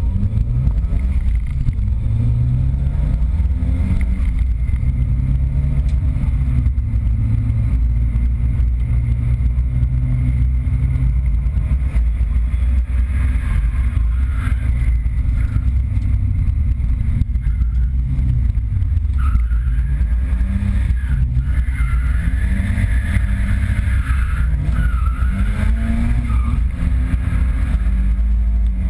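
Nissan 200SX drift car's engine heard from inside the cabin, revving up and falling back again and again as it is driven hard. A higher wavering squeal, typical of tyres sliding, comes in at times in the second half.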